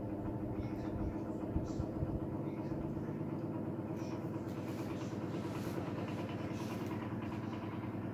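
Vintage Elcon 16-inch desk fan running: a steady motor hum with the rush of air from its spinning blades, which wobble because they are bent. A few low knocks come about one to two seconds in.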